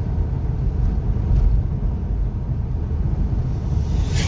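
Steady low rumble of a car travelling along a road, engine and tyre noise, with a short sharp sound near the end.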